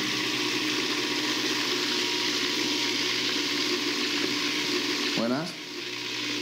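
A steady hiss with a faint low hum underneath, dipping briefly about five seconds in.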